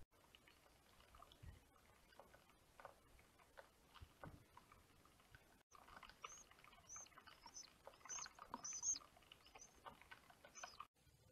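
Faint nest-cam ambience with scattered soft taps and rustles, then, from about halfway, a run of short high-pitched bird chirps, roughly two a second.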